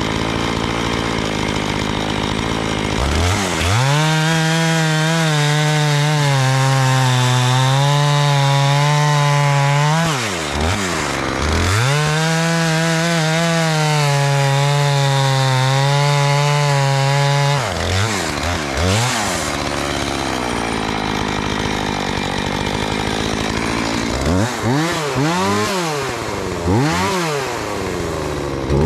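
Two-stroke chainsaw idling, then held at full throttle twice for about six seconds each, as in two long cuts through a log, dropping back to idle between them. Near the end it is blipped up and down several times.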